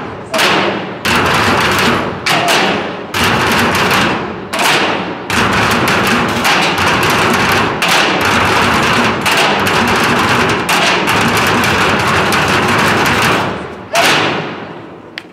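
Percussion ensemble drumming with sticks on metal oil drums, blue plastic barrels and a large bass drum: a fast, dense rhythm broken by several short unison stops in the first few seconds, then continuous drumming that ends on one final unison hit about a second before the end, left to ring away.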